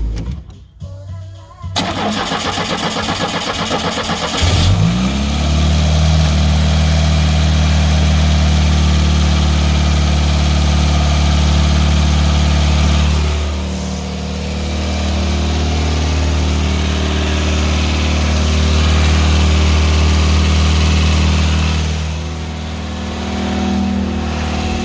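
Cold start of a Pontiac Fiero's 2.5-litre Iron Duke four-cylinder. The starter cranks for a couple of seconds before the engine catches about four seconds in and settles into a steady idle, dipping briefly twice. There is no belt squeal, now that the alternator is properly bolted to the block.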